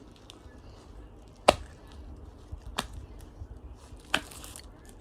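Stretchy glittery slime being pulled and peeled off the hands, with three sharp snaps about a second and a half apart, the first the loudest.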